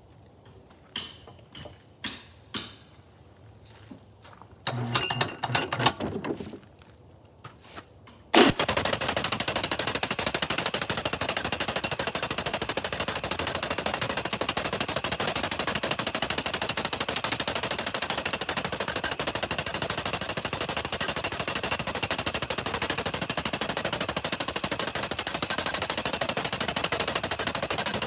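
A few scattered wooden knocks as the black ash log is handled. About eight seconds in, an electric jackhammer mounted in a wooden pounding rig starts abruptly and runs on steadily, rapidly hammering the log to loosen its growth rings into basketry splint.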